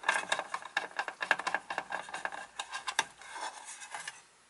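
A screwdriver backing a screw out of an aluminium cover plate: a quick run of small scraping, rasping clicks, with one sharper click about three seconds in, then fading out.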